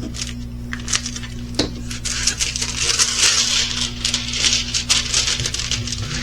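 Crinkling and crackling of plastic packaging being handled, densest in the middle, over a steady low hum.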